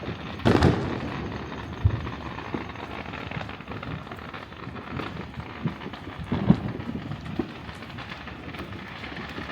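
Fireworks going off: a loud bang about half a second in, then scattered smaller bangs over a steady background rumble.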